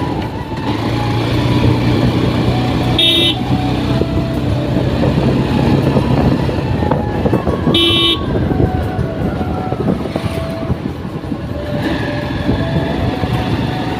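Motorcycle engine running steadily under way with wind rush, and two short horn beeps, one about three seconds in and another about eight seconds in.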